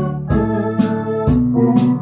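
Electronic organ playing a trot tune: held chords and melody over the organ's drum accompaniment, with a beat about twice a second.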